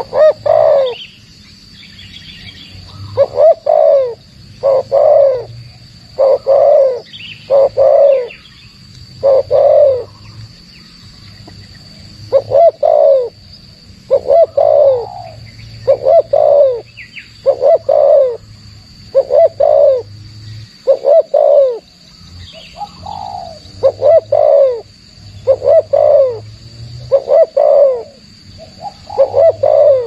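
Spotted dove cooing: a long run of loud, low coos, about one a second, broken by a few short pauses. A steady high insect drone sounds behind it.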